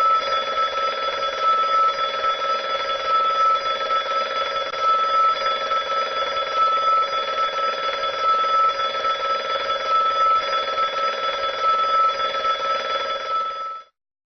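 Electric school bell from an automatic school bell system, ringing continuously for about fourteen seconds as the end-of-school-day bell. It cuts off abruptly near the end.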